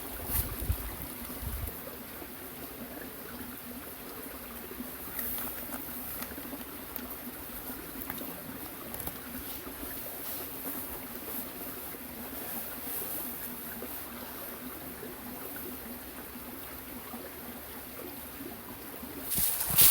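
Small stream flowing steadily, with wind briefly buffeting the microphone in the first couple of seconds.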